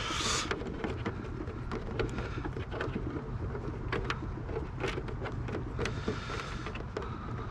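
Steady low rumble of wind on the microphone, with scattered light clicks and taps as hands handle the plastic body of an RC speed-run car.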